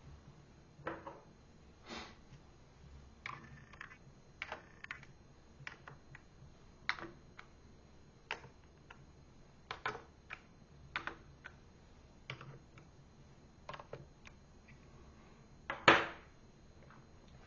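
Irregular clicks and taps from handling a laptop, like keys and its plastic case being touched and set down, with one louder knock near the end.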